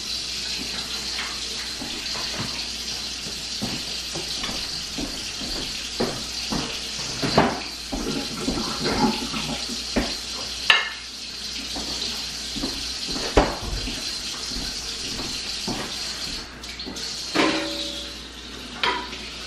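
Kitchen tap running steadily into a sink, with dishes and pans knocking and clinking against each other several times.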